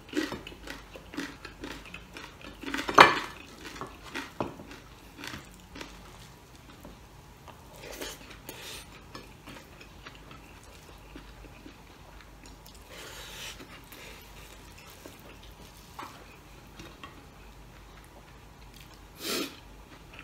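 Plates and cutlery clinking and tapping during eating, with chewing. There are many clinks in the first few seconds, the loudest about three seconds in, then sparser, quieter taps. Near the end a ladle clinks against the stainless-steel soup pot.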